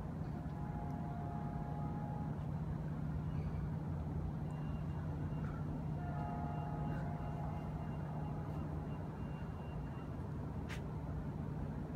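Steady low drone of an approaching diesel commuter train still out of sight, with faint higher tones that come and go twice.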